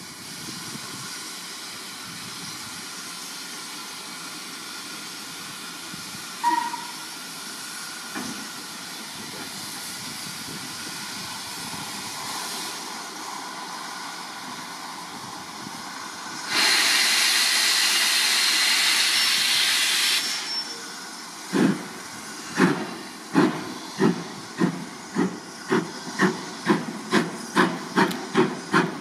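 Steam locomotive 46512, an LMS Ivatt Class 2 2-6-0, standing with steam hissing, a short whistle about six seconds in, then a loud rush of steam for about four seconds. It then starts away: exhaust chuffs begin slowly and quicken to about three a second.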